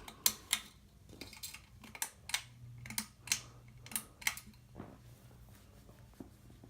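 A ceiling fan's low steady hum, under about nine sharp clicks that come mostly in pairs during the first four seconds or so and then stop.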